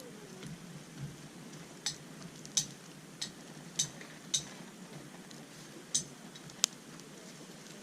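Hardwood campfire crackling: sharp, irregular pops and snaps every half second to a second or so, over a faint steady background.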